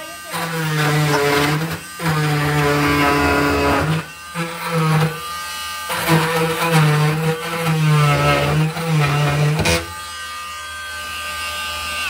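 Corded oscillating multi-tool cutting into the particleboard edge of a laminate countertop. It runs in bursts of about two seconds with short breaks, then runs more quietly and steadily for the last two seconds.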